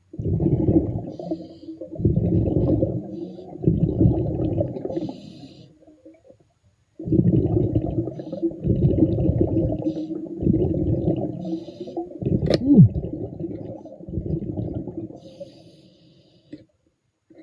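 Underwater rumble of a diver's breathing gear: surges of low, bubbling noise as exhaled air streams out, coming and going in uneven pulses, with a sharp click about twelve seconds in.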